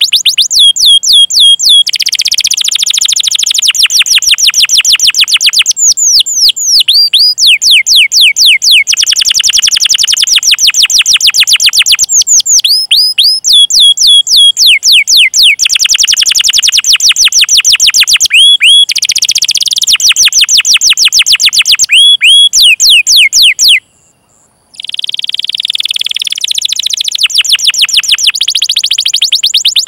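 Domestic canary singing a long, loud, high-pitched song of fast repeated falling chirps and rolling trills ('cuit cuit' calls and 'ngerol' rolls). The phrases change every few seconds. The song breaks off for about a second roughly three-quarters of the way through, then resumes.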